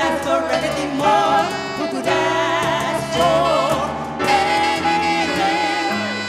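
Two women singing a duet over a small live band of grand piano, saxophone and cajon.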